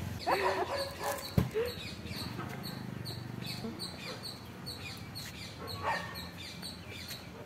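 Outdoor street ambience with a high chirp repeating about twice a second. There is a short pitched call near the start and another about six seconds in, and a single sharp knock about a second and a half in.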